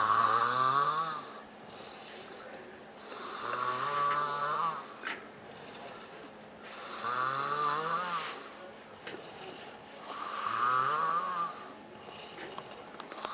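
A man snoring while ill: four long snores, each rising in pitch, come about three and a half seconds apart, with quieter breathing between, and a fifth begins right at the end.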